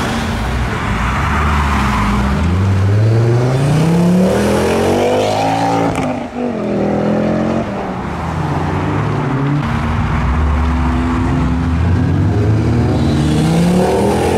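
Ford Focus RS Mk2s with aftermarket exhausts accelerating hard one after another, their turbocharged 2.5-litre five-cylinder engines revving up. The engine note climbs in pitch, drops back at gear changes (the sharpest about six seconds in), then climbs again.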